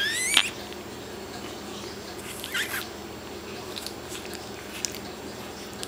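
Shih Tzu puppy giving a short, high rising whine, then a fainter whimper about two and a half seconds in, with a few faint scattered ticks.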